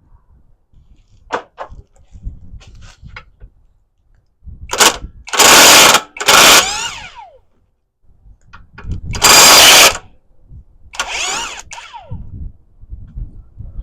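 Power impact wrench hammering in about five short bursts, each a second or less, with the motor's whine falling away after some releases, as it loosens the flywheel bolts. Quieter tool clicks and handling sounds come between the bursts.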